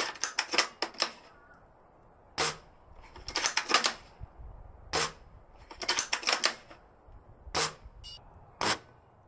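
Spring-powered bolt-action airsoft sniper rifle being test-fired: a single sharp crack of each shot, alternating with a quick cluster of metallic clicks as the bolt is cycled to cock it for the next shot, a few times over.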